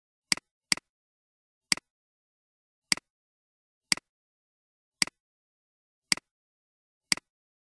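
Computer mouse button clicks: eight short, sharp clicks, each a quick press-and-release pair, the first two close together and the rest about a second apart, with dead silence between.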